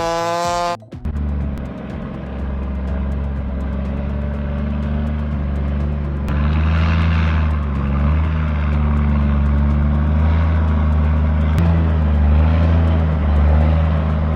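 A chainsaw's whine, rising and falling, cuts off abruptly under a second in. Then a heavy truck's diesel engine runs with a steady deep drone, and a rougher noise joins it about six seconds in.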